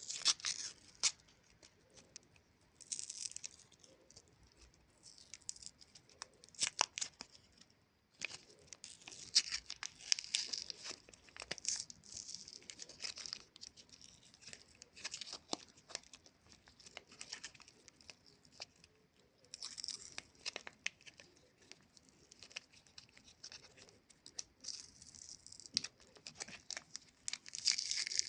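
Plastic lollipop wrappers crinkling and tearing in irregular bursts, with sharp clicks and crackles and short pauses between handlings.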